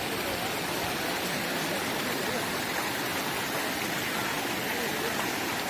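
Waterfall: a steady, even rush of falling water, with faint voices underneath.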